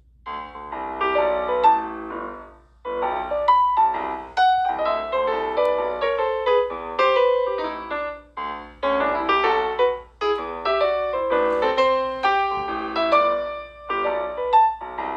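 Samsung Galaxy A71 5G ringtone: a bright, piano-like keyboard melody of quick notes, played in phrases with short breaks between them.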